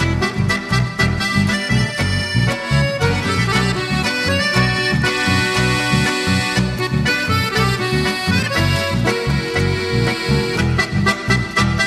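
Background music led by an accordion, with held melody notes over a steady, even bass beat.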